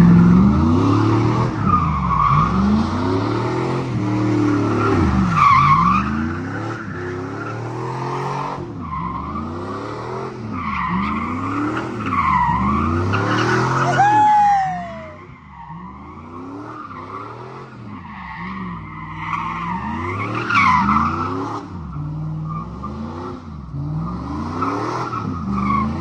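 Pickup truck doing donuts: the engine revs up and down in repeated surges while the rear tyres spin and squeal on the pavement.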